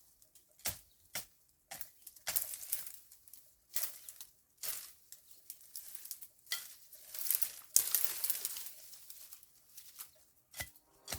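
Irregular rustling and crackling with scattered sharp clicks, in short uneven bursts.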